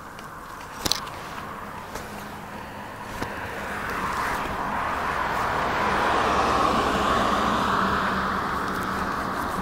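A car passing on a road: tyre and engine noise swells from about three seconds in, is loudest a little past the middle, then slowly fades. A short click comes about a second in.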